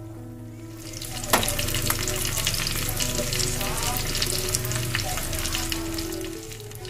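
Pieces of soy-glazed braised chicken sizzling in hot oil in a non-stick frying pan, the sizzling growing louder about a second in, with one sharp pop. The chicken is being pan-grilled until the skin dries and chars a little.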